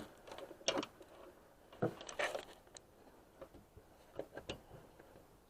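A handful of scattered light clicks and knocks from tools and engine parts being handled under the hood while a serpentine belt is fitted around its tensioner.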